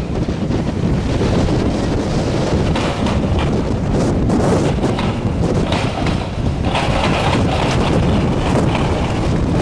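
Storm-force wind buffeting the microphone: a loud, continuous low rumble, with scattered brief rattles and knocks, one cluster about four seconds in and another about seven seconds in.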